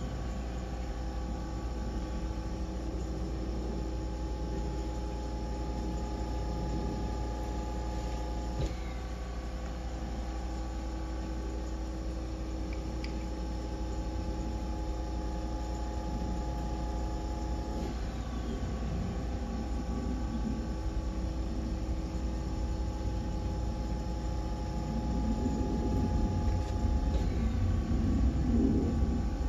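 Steady electrical hum with a few faint held tones that cut out and come back now and then, and some louder low rustling near the end.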